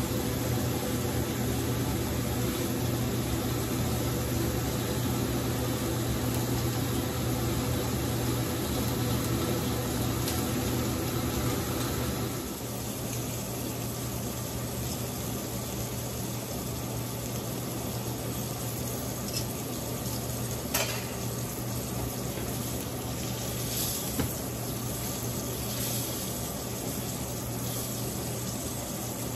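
Beef roast sizzling in oil in a hot cast iron skillet over the steady hum of a kitchen exhaust fan. The sound shifts and drops slightly about twelve seconds in. Later come a few sharp clicks of metal tongs against the pan.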